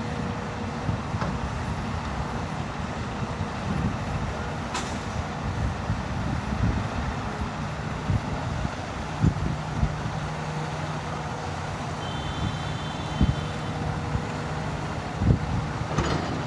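Heavy diesel earth-moving machinery running steadily while loading dirt into a dump truck, with a few sharp knocks. A steadier engine hum sets in about halfway through.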